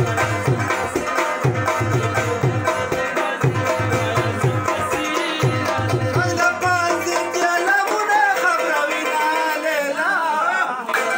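Pashto folk music: a rabab plucked in quick strokes over a steady tabla rhythm. About two-thirds of the way through the drum drops out and a wavering melody line carries on over the plucked strings.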